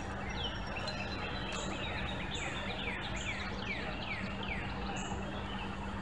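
A bird singing a run of about ten short, downward-sliding whistled notes, two to three a second, which stops after about four and a half seconds. Under it runs a steady hiss with a low hum.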